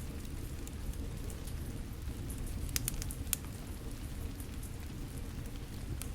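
Steady rain falling with a wood fire crackling, fine ticks throughout and two sharp pops from the fire about three seconds in.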